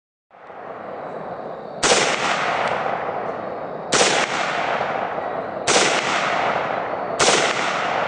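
Four single shots from an AK-47 rifle (7.62×39 mm), spaced about one and a half to two seconds apart, each ringing out in a long echo over a steady rushing noise. The Tannerite-packed target has not yet gone off.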